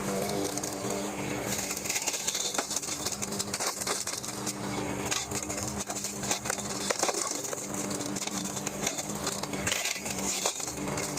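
Lawnmower engine running steadily while its rotary blade chops tree limbs, with dense, irregular cracking and clattering of wood being hit and thrown.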